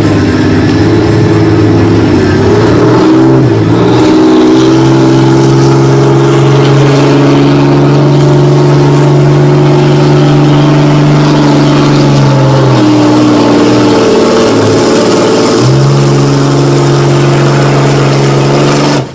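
Ram heavy-duty pickup truck's engine running at high revs under heavy load as it drags a weight-transfer pulling sled. The pitch holds mostly steady, dipping once and climbing back near the end.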